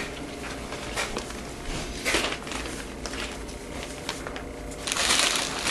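Wrapping paper crinkling and rustling as a present is unwrapped, in short scattered rustles, then a longer tearing rustle near the end.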